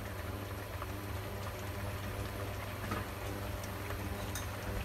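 Tomato sauce thinned with water simmering in a frying pan on an induction cooktop, coming up to the boil: a steady bubbling hiss with faint pops. A steady low hum runs underneath.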